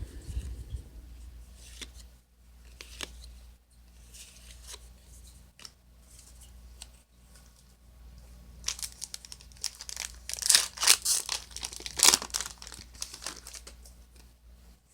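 Foil trading-card booster pack being crinkled and torn open, with light handling clicks at first and a loud stretch of crackling and tearing in the second half.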